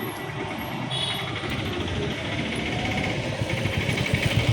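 Small vehicle engine running with road and wind noise, gradually getting louder.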